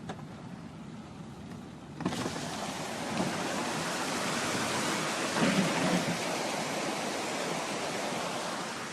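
Steady rushing noise of floodwater and heavy rain, which turns suddenly much louder about two seconds in.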